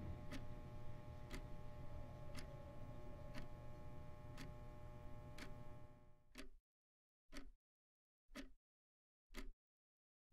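Regular ticking, one sharp tick about every second, over a steady hum with a few held tones. About six seconds in the hum cuts out and the ticks carry on alone.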